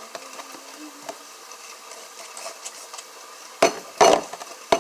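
Faint handling noise, then a cluster of sharp knocks about three and a half seconds in: a single knock, a double knock, and a short last one, as of hard objects being set down or tapped on a table.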